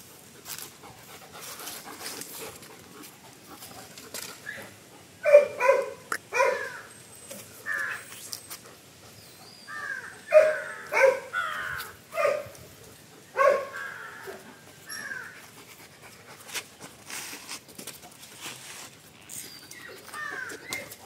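German Shepherds barking in short clusters during play, the loudest runs about five seconds in and again between ten and fourteen seconds.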